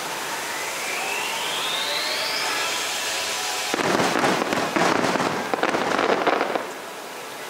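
Aerial fireworks: a faint rising whistle over the first couple of seconds, then about three seconds of dense, rapid crackling from bursting shells that starts suddenly and cuts off near the end.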